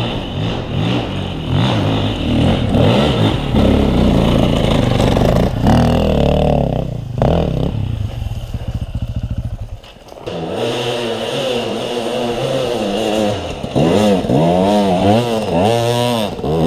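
Enduro dirt bike engines revving hard on a steep forest hill climb, with a short drop in the middle, then the pitch swinging up and down again and again near the end as the throttle is worked.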